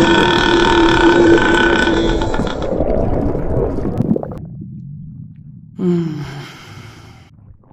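A long, loud human belch that fades away about four seconds in, followed near the end by a shorter burp that falls in pitch.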